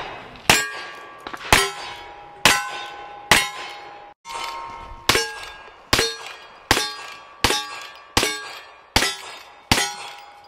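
A string of gunshots about one a second, each followed by the clang and ring of a hit steel target. A revolver fires first. After a break about four seconds in, a lever-action rifle fires a little faster, roughly every 0.8 seconds.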